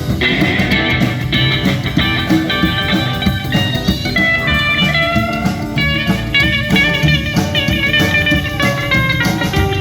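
Rock and roll band playing an instrumental break: a lead guitar plays a fast melodic line over drums and bass, with no singing.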